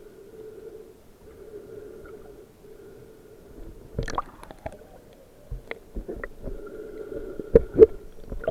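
Muffled underwater sound picked up through a camera's waterproof housing: a steady low hum with gurgling, broken by sharp knocks about four seconds in and a cluster of them in the last few seconds.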